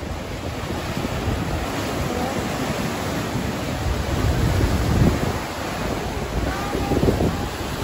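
Ocean surf washing in below, with wind buffeting the microphone; the rush swells louder about five and seven seconds in.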